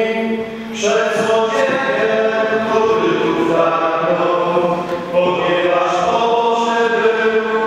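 Voices singing a slow liturgical chant in held notes, breaking briefly about half a second in and again about five seconds in.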